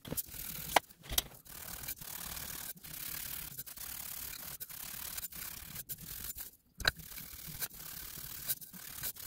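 A laser-cut metal indexing plate rubbed back and forth on an abrasive sheet to deburr and clean up its face. It makes a rasping scrape in strokes with short gaps about once a second, and a few sharp clicks as the plate knocks or shifts.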